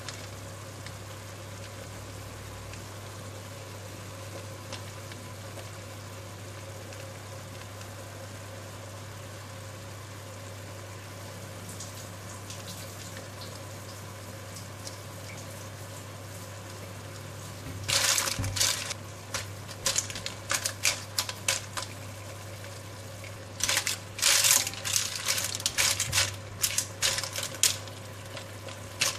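Clams in a little liquid simmering in a stainless-steel wok, a steady low bubbling hiss as they steam open. About two-thirds of the way in a spatula starts stirring them, clattering and scraping against the wok in two bouts.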